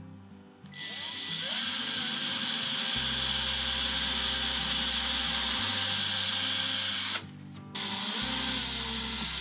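Cordless drill with a small bit boring into a hardwood board, running steadily from about a second in. It stops for about half a second near the end, then starts again.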